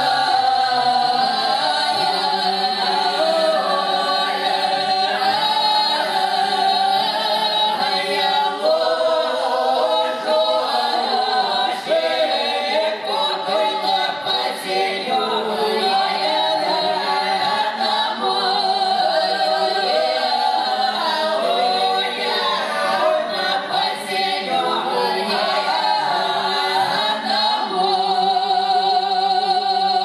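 Unaccompanied Russian Cossack folk song in several voice parts, sung by five women and one man: interweaving lines with long held notes, closing on a sustained chord near the end.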